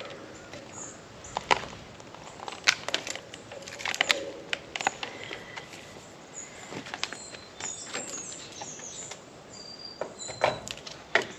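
Scattered clicks, knocks and rustles of a hose, an electric heat cable and a magnetic heater being handled and fitted to a frozen water hydrant line, with a few short high chirps around the middle.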